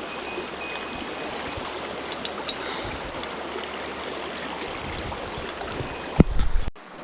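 Mountain stream water rushing steadily over rocks. Shortly before the end, a loud low rumbling knock, like the microphone being handled, then the sound cuts off abruptly.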